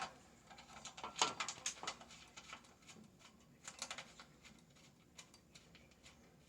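Faint, scattered light clicks and taps of tool box hardware being handled, in small clusters.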